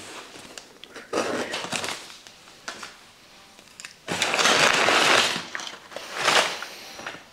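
A cardboard parcel being opened and its crumpled brown kraft-paper packing rustled and pulled about by hand, in several bursts, the longest and loudest about four seconds in.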